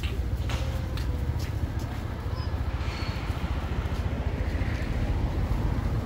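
A motor running steadily with a low, evenly pulsing rumble.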